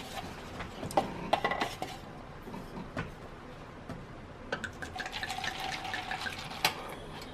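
White wine poured from a glass bottle into a styrofoam cup, the stream trickling and filling for a couple of seconds in the second half. Before that, a few light knocks as the foam cups are handled.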